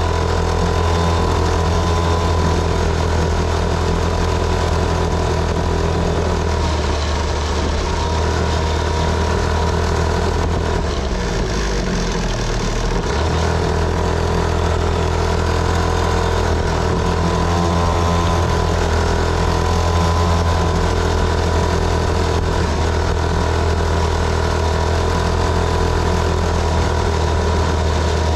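Small motorcycle engine running at a steady speed while riding, with a brief drop in pitch about eleven seconds in before it picks back up.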